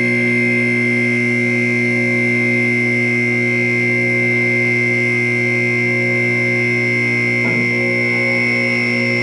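Two-post car lift's electric hydraulic power unit running on its first run, a steady loud mains-motor hum with a high pump whine.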